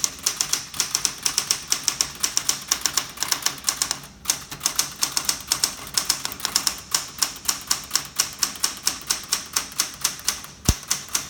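Smith Corona Galaxie II manual typewriter being typed on fast, a rapid, even run of key strikes at about six a second, with a brief pause about four seconds in.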